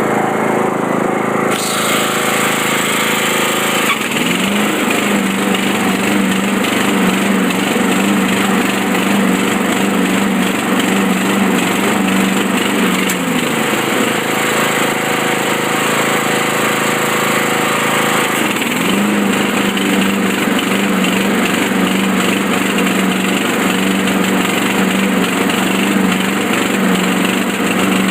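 Craftsman 42-inch riding lawn mower engine running rough, which the owner thinks sounds like it is missing on a cylinder. The noise gets fuller about two seconds in, and a steady hum comes in twice: once for about nine seconds, then again for the last nine seconds or so.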